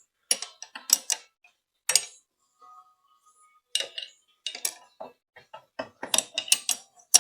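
Metal hand tools (spanners and sockets) clinking and clattering against one another as they are handled: a string of sharp metallic clicks and clinks in quick clusters, with a brief faint ring about three seconds in.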